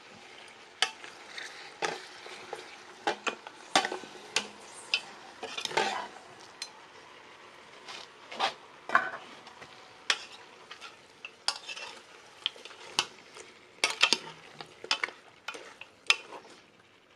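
A spoon stirring food in a cooking pot, knocking and scraping against it at irregular intervals over a steady sizzle of frying.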